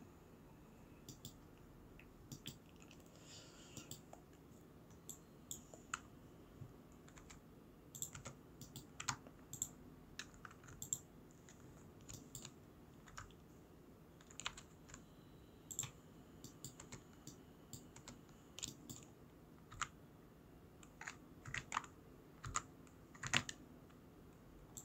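Computer keyboard keys and mouse buttons clicking at irregular intervals while working in Blender, in scattered runs of quick clicks, over a faint steady background hum.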